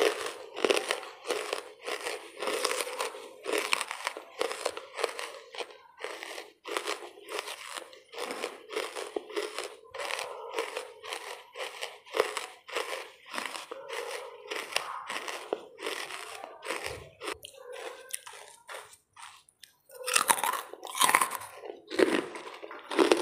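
Close-miked chewing of lumps of charcoal: a quick run of crisp, dry crunches. It goes quieter for a few seconds past the middle, then loud bites crunch again near the end.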